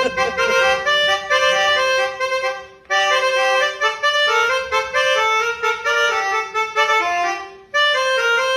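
A bus's multi-tone basuri-style telolet horn playing a quick melody of reedy held notes, stepping from pitch to pitch as its buttons are pressed in rapid succession. It breaks off briefly about three seconds in and again near the end. Its sound is close to a genuine Basuri horn.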